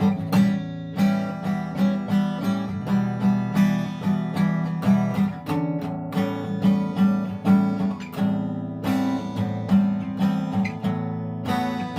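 Acoustic guitar played fingerstyle on its own, a steady repeating pattern of plucked notes over a low bass line, with no singing.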